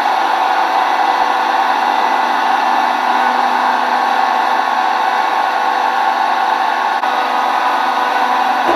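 Hydraulic power unit of a scrap-metal baling press running: electric motors driving the hydraulic pump in a loud, steady hum and rush with a few held tones.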